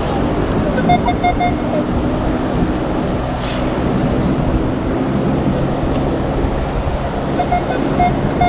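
Minelab Equinox 800 metal detector giving short mid-pitched target beeps, a quick run of them about a second in and again near the end, as the coil passes over a coin-sized target reading higher than a quarter. Under it runs a steady rush of wind and surf.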